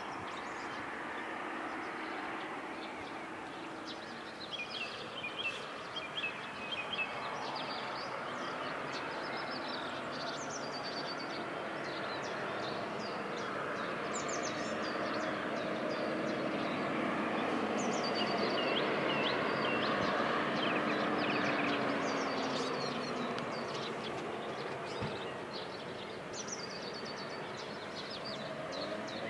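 Small birds chirping and singing over a distant engine hum. The hum swells to its loudest about two-thirds of the way through, then drops a little in pitch and fades.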